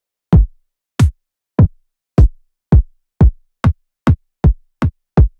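Electronic reggaeton kick drum samples auditioned one after another, about eleven single hits with silence between. Each hit has a sharp click and a quickly falling pitch into a deep thump, and they come faster toward the end.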